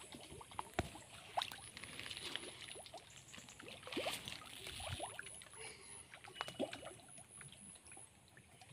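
Faint, scattered plops and small splashes of fish rising and gulping at the surface of a pond, at irregular intervals.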